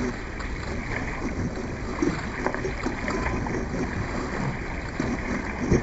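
Dragon boat under way: paddle blades splashing and pulling through the water, with a steady wash of water around the boat.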